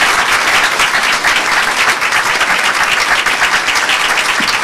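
An audience applauding: many hands clapping together at a steady level.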